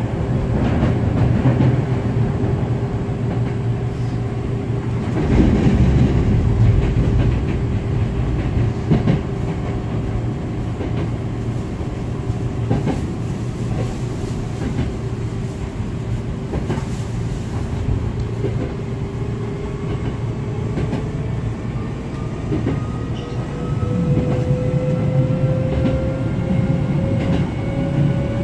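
Hankyu 7000 series electric train running, heard from inside the car: a steady wheel-and-rail rumble with occasional clacks over rail joints. A traction-motor whine holds steady, then rises in pitch through the second half as the train picks up speed.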